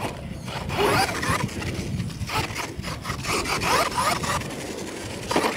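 R/C monster truck's electric motor whining up and down with the throttle as the truck drives on dirt, with tires scrabbling and grit rasping under it.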